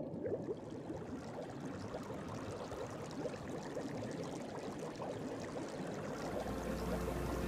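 Water pouring and bubbling, a sound effect laid under the song's opening. A low steady hum comes in about six seconds in as the music begins.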